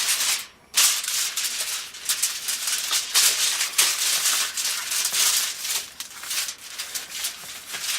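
Aluminium foil crinkling and rustling as it is handled, with a brief pause about half a second in.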